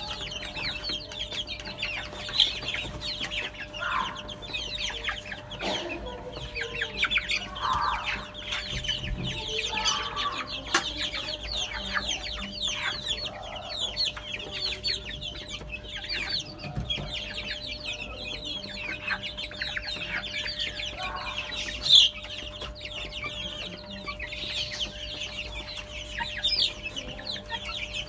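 A brood of young chicks peeping continuously, a dense chorus of many short, high calls. A faint steady hum sits underneath, and there is one louder sharp sound about three quarters of the way through.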